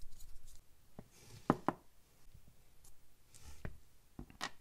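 Light clicks and taps of a 4 mm nut driver and small metal and plastic parts as the spur gear is taken off an Axial SCX24 micro crawler's transmission. The sharpest are two clicks close together about a second and a half in.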